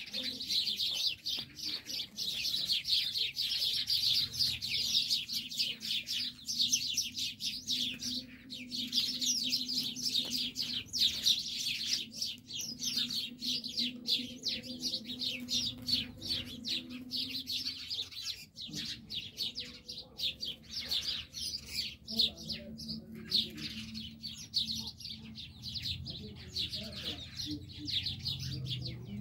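A flock of small birds chirping and twittering in a rapid, continuous chatter, over a low steady hum.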